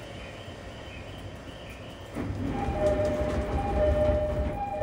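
Running sound of a JR East 209 series 2100 subseries electric train: a steady rumble that grows louder about two seconds in. A steady two-note whine joins it shortly after, and there is a louder clunk at the very end.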